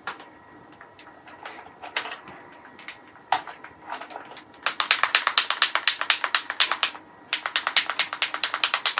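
A bottle of airbrush paint being shaken by hand, rattling in fast, even strokes of about ten a second. The rattling starts about halfway through and breaks off briefly before carrying on. Before it there are a few scattered light clicks.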